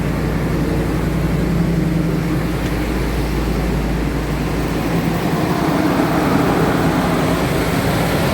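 Jeep Grand Cherokee engine idling steadily, its low tone shifting about five seconds in. It is running only because 12 volts is being fed by hand to an engine-computer circuit that is missing its power feed.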